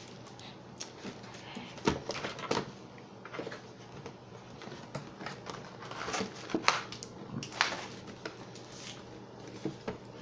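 Plastic wrappers and toy packaging being handled: scattered crinkles, rustles and light taps at irregular moments.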